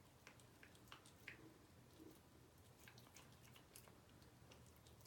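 Cat chewing raw chicken: faint, irregular wet clicks and bites, a few a second, slow and dainty.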